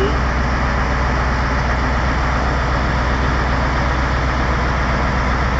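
Heavy crane truck's engine running steadily with a low, even hum.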